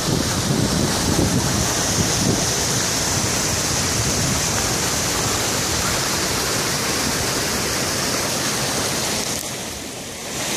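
Floodwater rushing in a steady roar, with wind buffeting the microphone in low gusts during the first couple of seconds.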